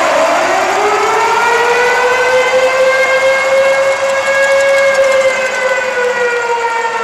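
Arena goal siren sounding for a goal: it winds up in pitch at the start, holds a long steady wail, and begins to wind down near the end, with crowd cheering underneath.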